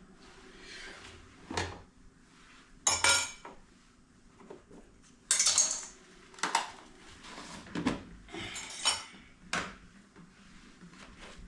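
Kitchen utensil clatter: a metal spoon knocking and scraping against a mixer jar and other vessels, a string of separate clinks with the loudest about three and five and a half seconds in.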